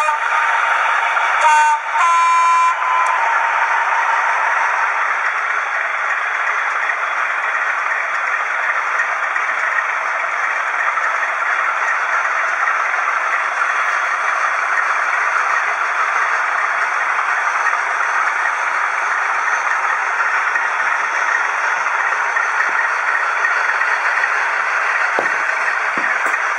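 Steady rolling and running noise of model railway stock on OO-gauge track, heard close up from the wagon carrying the camera. Early on a model diesel's horn sounds twice, briefly.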